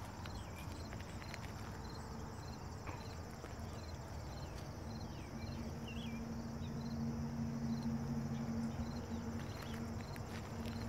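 Insects chirping in an even rhythm, about one chirp every two-thirds of a second, with a few short bird calls. From about five seconds in, a low steady drone rises slightly in loudness: a diesel train approaching in the distance.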